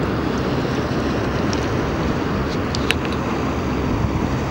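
Wind buffeting the microphone over small waves lapping on open water, with a few small splashes. The sharpest splash comes about three seconds in.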